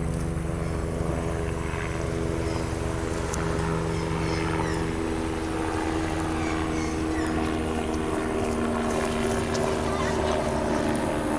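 A steady engine drone with several held tones, shifting slightly in pitch about halfway through.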